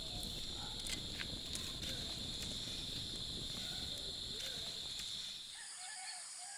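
Crickets chirring steadily in a high, even drone that stops about five and a half seconds in, with faint short calls of distant chickens and a few faint clicks.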